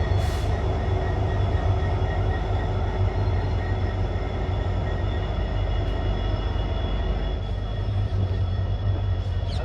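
EMD-built WDP4D diesel-electric locomotive's two-stroke engine running with a steady deep hum, a thin whine held above it.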